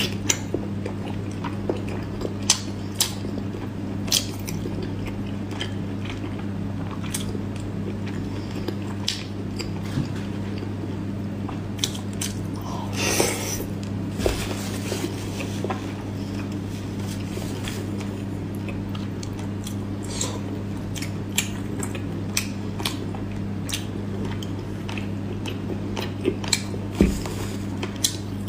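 Close-miked mukbang eating sounds: biting and chewing braised pork belly and lettuce, with many short wet clicks and smacks and one longer, noisier sound about thirteen seconds in, over a steady low hum.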